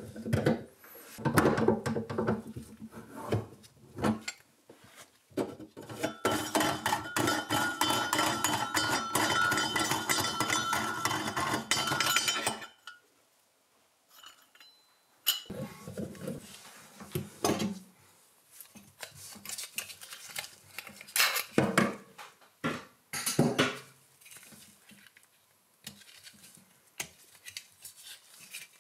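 Metal-on-metal clinks and scraping from a steel kitchen sink basket strainer being taken apart. A continuous rasping scrape runs from about six to about twelve seconds in, as the lock nut is spun off the strainer's threaded body, and stops abruptly. It is followed by scattered clinks as the strainer is worked loose and lifted out of the stainless-steel sink.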